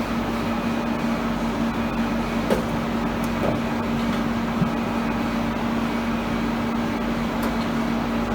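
Toshulin SKIQ-8 CNC vertical turret lathe running: a steady machine hum with a couple of faint clicks.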